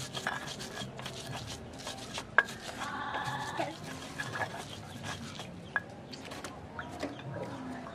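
Stone pestle grinding chili and spice paste in a stone mortar (Indonesian cobek and ulekan): stone scraping and rubbing on stone, with two sharp knocks. A brief pitched call about three seconds in.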